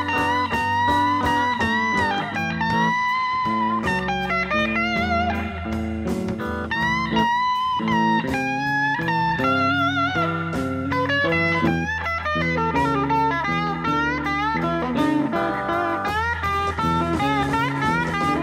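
Blues band playing live and instrumental: an electric guitar lead whose notes bend and waver, over bass guitar and drums.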